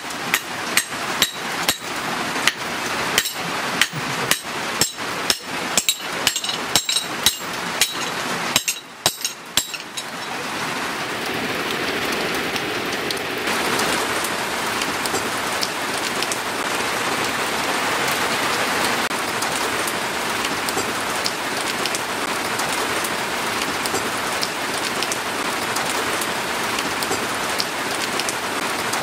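Hammer blows on a leaf-spring steel axe head at the anvil, about two a second, stopping after about nine seconds. They give way to a steady rain-like hiss.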